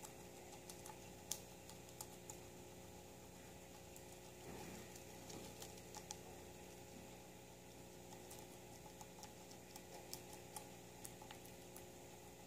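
Guinea pig chewing leafy greens: faint, irregular crunching clicks over a low steady hum.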